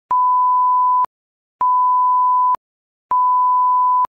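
Repeating electronic beep: one steady, even tone, about a second long, sounding three times at an even pace about every second and a half, each beep starting and stopping with a slight click.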